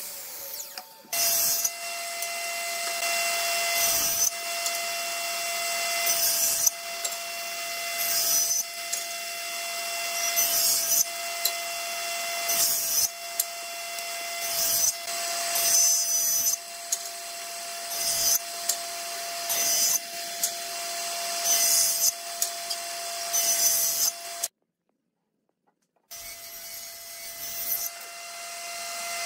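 Table saw of a Hitachi combination woodworking machine running with a steady hum while a board held on end is pushed through the blade pass after pass. The cutting noise swells about every two seconds. The sound drops out for about a second and a half near the end.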